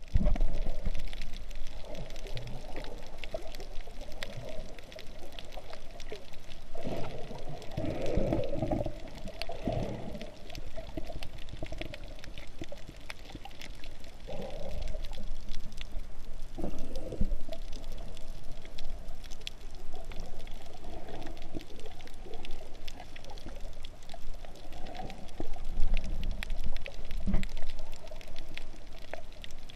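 Underwater sound heard through a GoPro's waterproof housing: muffled water movement that swells and surges, louder about a third of the way in, with a steady scatter of faint clicks.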